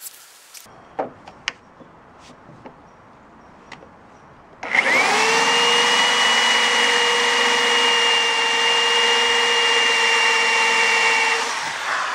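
A few light clicks, then a power drill spins up about five seconds in and runs steadily with a whine for about six and a half seconds before winding down. It is drilling, in reverse, into the head of a stripped, rusted Torx bolt with the drill end of a Speed Out extractor bit, to make room for the extractor to bite.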